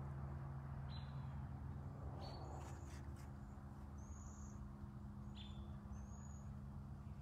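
Faint bird chirps, short high notes spaced a second or two apart, over a steady low hum.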